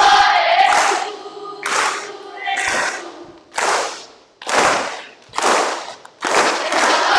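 A group of voices chanting in unison in short rhythmic phrases, about one a second, each starting sharply.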